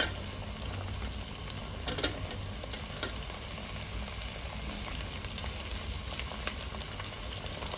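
Onion, potato, tomato and capsicum frying in oil in a pressure cooker: a steady sizzle, with a few light clicks and knocks as the chopped capsicum drops in.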